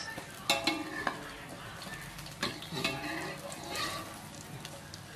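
Egg omelette sizzling in hot oil in a steel wok, its underside scorching, while a metal spatula scrapes and clinks against the pan a few times.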